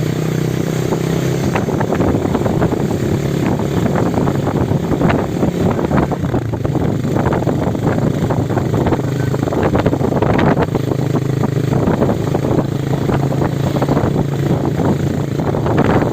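Road vehicle engines running steadily with traffic noise: an even low hum under a dense rumble and rattle.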